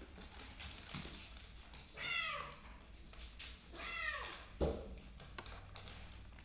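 A kitten meowing twice, each meow falling in pitch, about two seconds in and again about four seconds in. Light taps throughout and one sharp knock just after the second meow.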